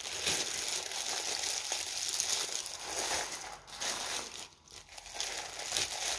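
Clear plastic wrapping crinkling and rustling as a ceramic owl lamp is pulled out of it by hand, with a brief lull about three-quarters of the way through.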